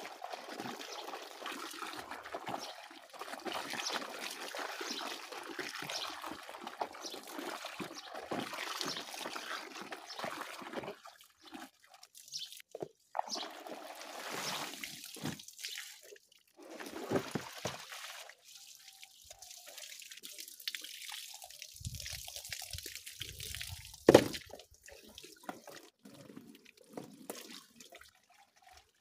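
Water splashing and trickling in uneven spurts, with quieter gaps, and one sharp knock late on.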